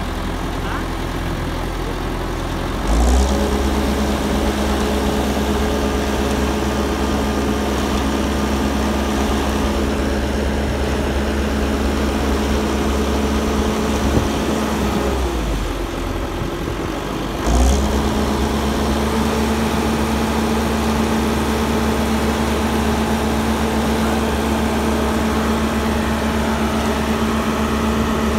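Ajax Argo 2000 self-loading concrete mixer's engine running steadily. About three seconds in it steps up to a higher, steady speed with a short sharp sound. It eases back for a couple of seconds past the middle, then steps up again.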